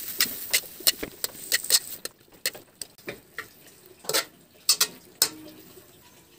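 Metal turner clicking and scraping against a wok while stirring cabbage. A quick run of irregular clicks comes first, then a few louder knocks about four to five seconds in.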